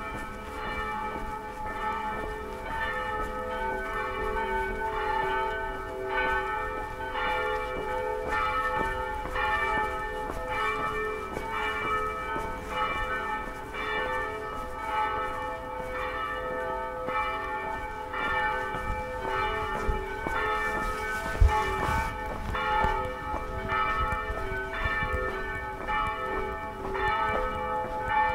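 Several church bells ringing together in a continuous peal, their strokes overlapping at a steady beat. One sharp low thump about three-quarters of the way through.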